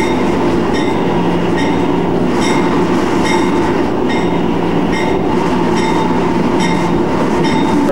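Freight train rolling past on the adjacent track, heard from the roof of a moving locomotive: a steady loud rumble under a constant locomotive drone. Regular clicks of wheels over rail joints come about one every second.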